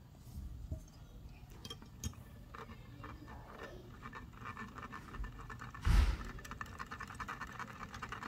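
Wire whisk scraping against a stainless steel mesh strainer as it pushes banana pancake batter through: quiet, rapid scratching that becomes faster and denser about halfway through, with one dull knock about six seconds in.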